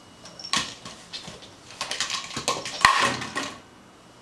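Empty plastic Coca-Cola bottle batted by a cat, clattering and skittering across the floor: a quick run of hollow knocks from about half a second in, the loudest near three seconds in, stopping shortly after.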